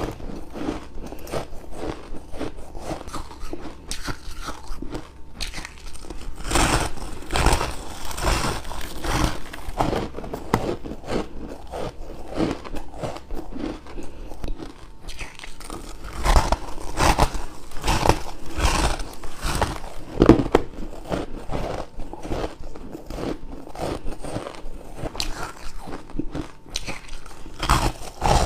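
Crushed and shaved ice being bitten and crunched close to the microphone: a dense, irregular run of crackling crunches.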